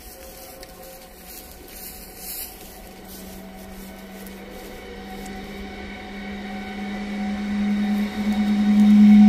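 Newag Dragon 2 (E6ACTd) electric freight locomotive approaching and passing, a steady electrical hum and whine growing steadily louder as it nears and loudest near the end as the locomotive draws level.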